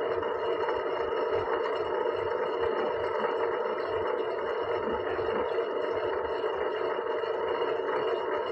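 Potter's wheel spinning under wet clay, running with a steady, even motor hum.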